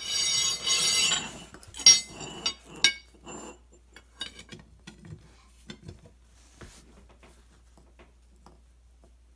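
Steel tire iron scraping and clanking against the base of a steel gun safe on a concrete floor as the safe is pried up to set golf balls under it. A second of ringing metal scraping comes first, then a sharp clank about two seconds in, then lighter clinks that die away over the next few seconds.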